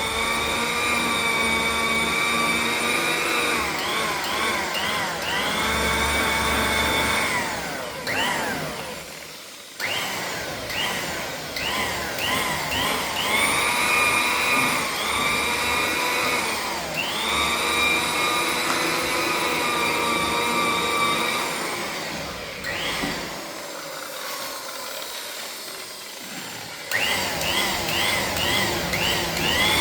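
Handheld electric power tool buffing cutting compound into a plastic headlight lens, its whine rising and falling in pitch as the load changes. It cuts out briefly about ten seconds in, and runs slower and quieter for a few seconds past twenty-three before picking up again.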